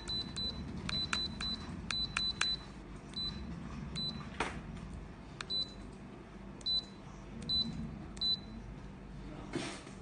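Short high electronic beeps from a touch-screen HMI panel's buzzer, one for each press of a pen on its on-screen keypad and buttons, each with a light tap. The beeps come in quick runs of two or three during the first three seconds, then more sparsely.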